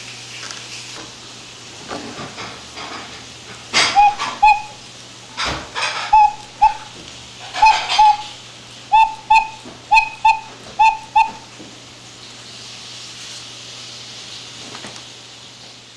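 Cuckoo clock's bellows and pipes sounding a run of about six two-note cuckoo calls, each led by a click and puff of air as the bellows drop. The freshly re-covered bellows are working.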